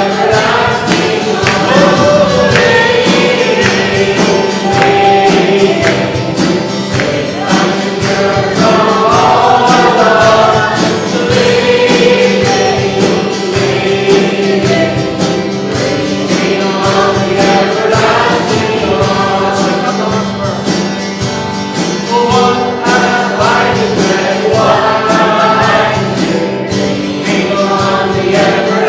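A congregation singing a gospel hymn with a band accompanying it, over a steady beat.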